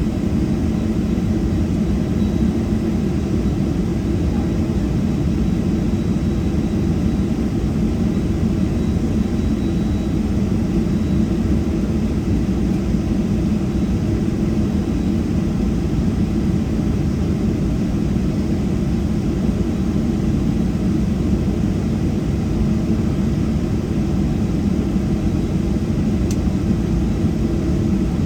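Steady cabin rumble of a Boeing 737-700's CFM56-7B turbofan engines at low taxi power, heard from inside the passenger cabin, even and unchanging, with a faint high steady whine over it.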